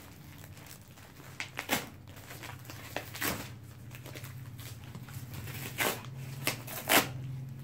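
Corrugated cardboard and packing tape being torn by hand off a plastic-wrapped parcel, in several short sharp rips with plastic crinkling between them, over a low steady hum.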